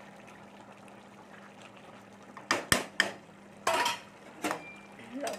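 A metal spatula scraping and knocking against an aluminium kadai as a thick vegetable curry is stirred: about six sharp scrapes and knocks in the second half. Underneath is a steady low hiss of the curry simmering.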